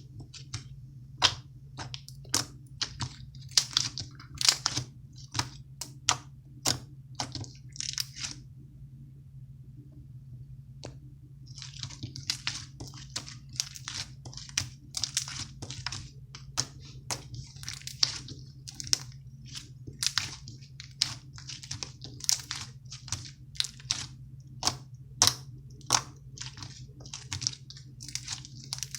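Slime being squeezed and stretched by hand, giving a rapid, irregular run of sharp wet clicks and pops. They stop for about three seconds around eight seconds in, then resume. A steady low hum runs underneath.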